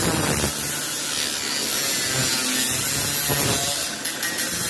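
A small power tool running steadily with a low hum.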